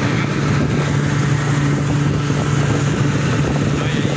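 Small boat's outboard motor running at a steady cruising speed, a constant low drone, with wind buffeting the microphone and water rushing past the hull.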